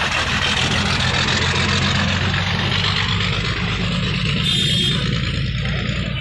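Steady rumble of road traffic, engines running by the roadside, with a short high-pitched tone about four and a half seconds in.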